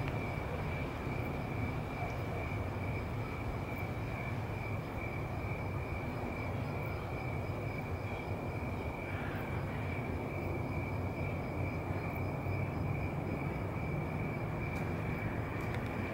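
Steady outdoor background noise: a low rumble with a continuous thin high-pitched whine over it.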